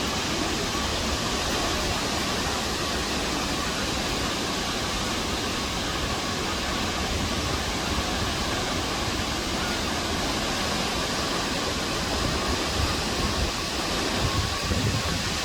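Waterfall, water rushing and falling as a steady, even noise.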